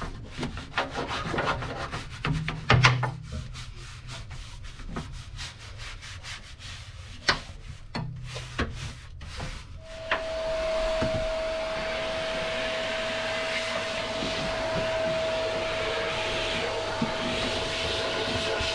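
A hand brush scrubs dried salt off an aluminium bilge floor in quick, uneven scratchy strokes. About ten seconds in, a vacuum cleaner starts and runs steadily with a constant whine, sucking up the loosened salt.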